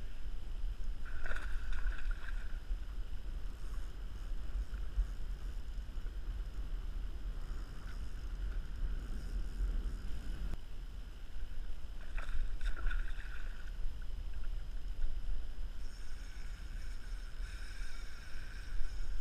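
Small waves lapping against a plastic kayak hull, with a low rumble of wind on the microphone. From about three-quarters of the way through, a spinning fishing reel is being wound in.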